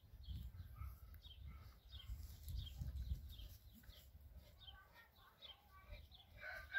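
Faint, rapid high chirps of birds repeating throughout, over a low rumble on the microphone. Near the end a louder, steady-pitched rooster crow begins.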